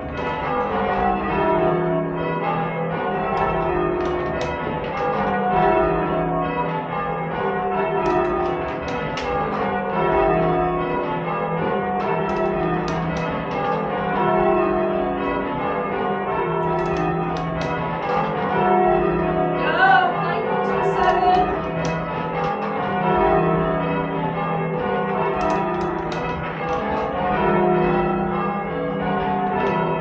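Church bells being rung full-circle by a band of change ringers: the bells strike one after another in regular runs that fall from the highest bell to the lowest, about one run every two seconds, and go on without a break.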